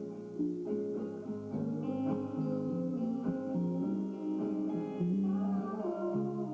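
Live music: a guitar played in picked notes, each note struck and left to ring.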